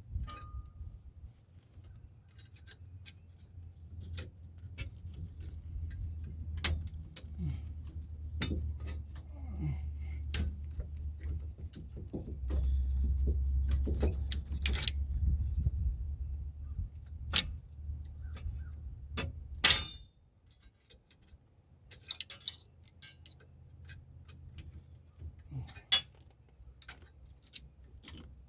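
Scattered sharp clicks and metallic clinks of hand tools and parts being handled, over a low rumble that drops away about twenty seconds in.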